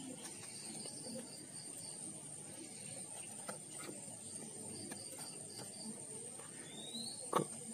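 Quiet outdoor ambience: a steady high-pitched insect drone, with two short runs of quick high chirps at about four a second and a brief rising whistle near the end. There are a few faint clicks.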